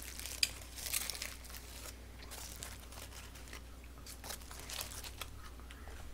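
Foil burger wrapper crinkling as it is handled and peeled back, in short crinkles on and off, busiest in about the first second and sparser after.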